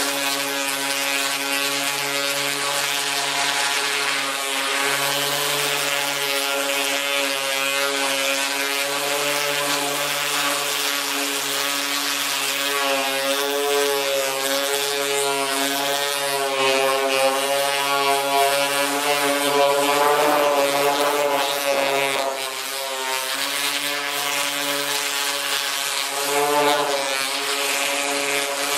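Electric random orbital sander running steadily against the painted sheet-metal roof of a 1986 Ford Mustang, sanding the paint down toward bare metal. Its motor hum stays steady with a slight waver in pitch as the pressure on the pad changes, over a hiss of the abrasive on the paint.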